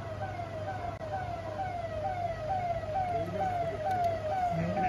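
Vehicle siren sounding a fast repeating yelp: a pitched tone that falls in pitch about twice a second.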